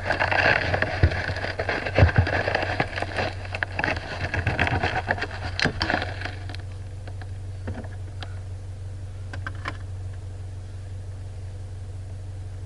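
Off-road vehicle's engine running low and steady while the vehicle jolts over rough ground, with knocks and rattles for about the first six seconds. After that only the engine hum and a few scattered clicks remain.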